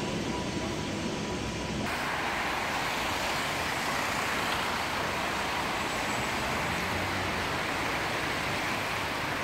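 Street traffic: a steady hiss of car tyres on a wet road, which comes in abruptly about two seconds in.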